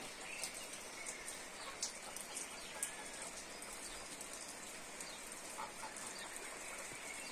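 Steady rain falling on leaves and foliage, with faint scattered drip ticks and a bird calling faintly a few times.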